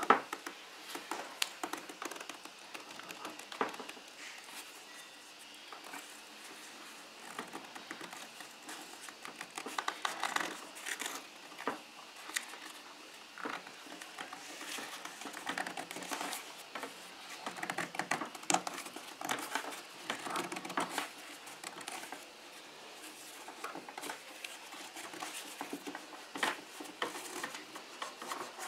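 Cow leather on a Jaguar X-Type rear door panel being handled: irregular rustling, rubbing and crinkling as fingers press, flex and slide along the leather, with many small clicks.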